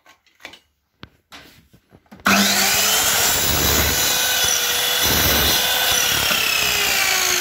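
A few small clicks, then about two seconds in a compound miter saw starts abruptly and runs loudly, its whine slowly dropping in pitch as the blade cuts through a white aluminium window-screen profile to trim its rough factory end.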